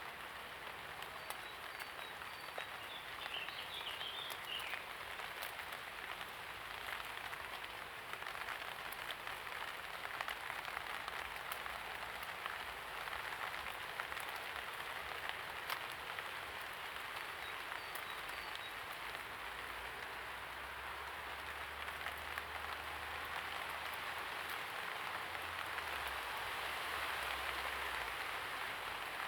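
Steady light rain falling, with individual drops pattering on surfaces.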